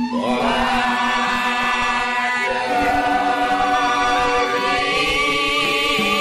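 A group of voices chanting together with a wavering pitch, starting at once, over a steady low tone that steps up in pitch about two and a half seconds in.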